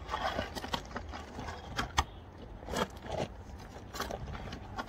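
Irregular sharp metallic clicks and clanks, about eight in all, as tools and parts are handled on a stripped car front subframe.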